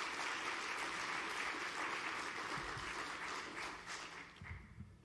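Audience applauding, a dense, even clapping that dies away over the last second or so.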